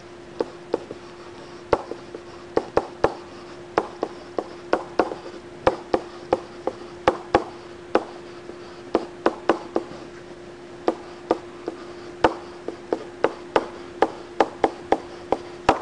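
Stylus tapping and clicking against a tablet's writing surface during handwriting: irregular sharp taps, two or three a second, over a steady faint hum.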